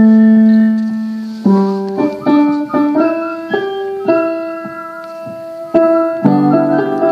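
Piano playing a dance tune, mostly one note at a time: a long held note at the start, then a run of shorter notes, another long note, and fuller chords coming in near the end.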